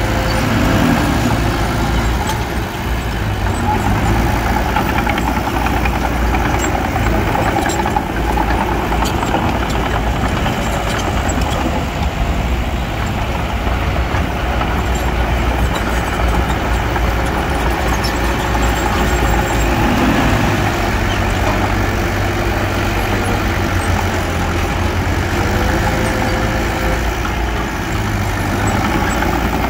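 Diesel engine of earthmoving machinery running steadily, with a deep, even hum and no pauses.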